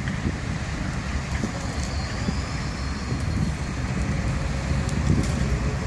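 Heavy dump truck's diesel engine running steadily, a low drone, with cars passing on the road in front of it.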